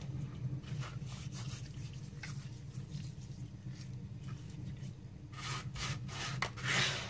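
Hands rubbing salt and sugar into raw pink salmon pieces, with scattered soft scratchy strokes. Near the end comes a denser, gritty scraping of a hand over salt crystals on a plastic cutting board. A steady low hum runs underneath.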